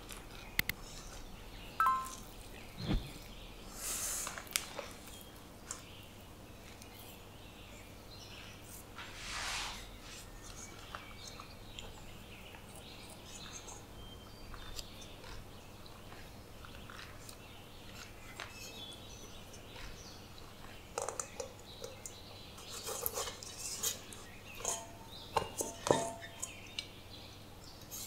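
A wooden-handled spatula scraping and knocking against a stainless steel bowl while stirring flour and water into a dough, with a brief ring from the bowl about two seconds in. Near the end, hands kneading and pressing the dough in the bowl give a cluster of soft taps and rustles.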